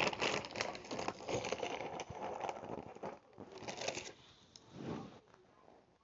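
Crinkling and rustling of cracker packaging being handled as a cracker is taken out, dense for about four seconds and then dying away.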